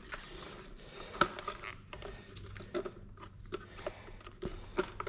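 Scattered small clicks and scrapes of a screwdriver prying at the plastic retaining clips of a fuel pump module's housing, with gloved-hand handling noise. One sharper click about a second in.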